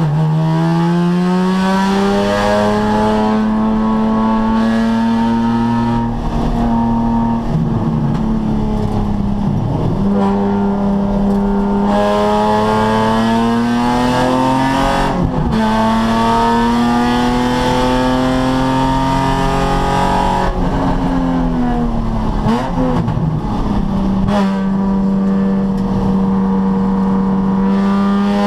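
Nissan 350Z's 3.5-litre V6 engine running hard around a race track. It holds a high note that climbs slowly, then dips briefly and recovers several times as the car shifts gears and slows for corners.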